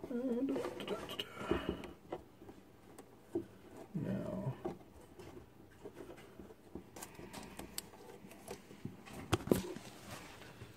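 Hands handling and twisting stripped electrical wires together: soft rustling and a few sharp small clicks, the loudest a little before the end. A short wavering voice-like sound comes right at the start and again about four seconds in.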